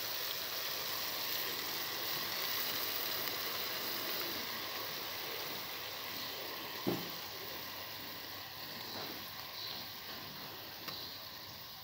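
Onion and garlic masala with water sizzling and bubbling in a pot as chicken kofta balls are placed into it; the sizzle slowly fades. A single short knock about seven seconds in.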